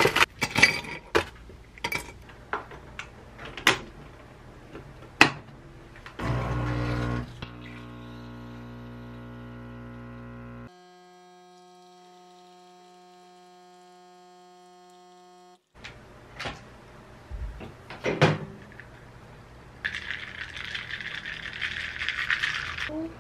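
Ice cubes clinking into a glass mug. Then an illy Iperespresso capsule coffee machine starts with a burst and runs with a steady pump hum for about nine seconds, quieter partway through, and stops. Near the end, ice crackles and rattles in the glass of freshly brewed coffee.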